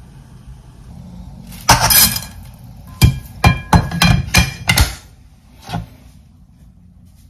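Cookware clanking: a loud clank with a short ring about two seconds in, then a quick run of about six sharp knocks over two seconds, and one more hit a second later.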